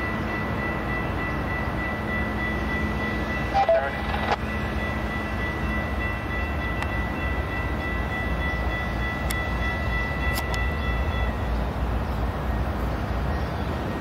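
Railroad train noise: a steady low rumble under a held high-pitched ringing tone that cuts off suddenly about three-quarters of the way through.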